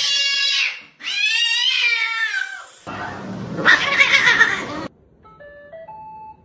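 A domestic cat yowling in two long, wavering meows. About three seconds in it gives way to two cats hissing and screeching at each other in a fight. Near the end comes a faint short run of electronic beeps, the tune of a robot vacuum.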